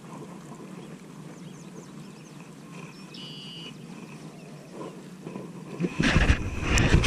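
Quiet open-air ambience over still water, with a short high bird call about three seconds in. Near the end, a sudden loud rush of rumbling noise close to the microphone.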